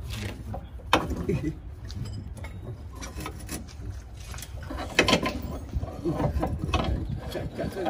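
Hand tools on car suspension bolts: irregular metallic clicking and clanking, with sharp knocks about a second in and about five seconds in.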